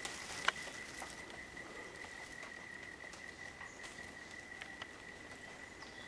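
A steady, high-pitched insect drone holding one even tone in the bush, with a single sharp click about half a second in.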